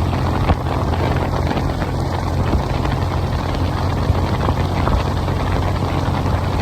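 Motorcycle engine running steadily on the move, heard through heavy wind noise on the microphone.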